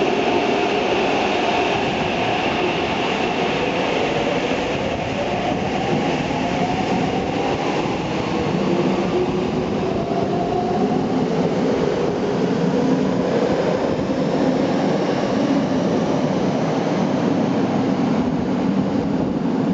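Saitama Railway 2000-series electric subway train pulling out of an underground station: its motor whine rises in pitch as it speeds up over the first ten seconds or so, then the cars run past with a steady wheel-and-rail rumble and clatter.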